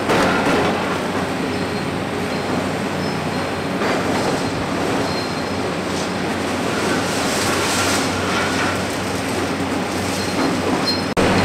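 Heavy Hitachi Zaxis 490 excavator working at concrete demolition: a steady, loud din of engine and scraping, with a few knocks and faint short high metallic squeals.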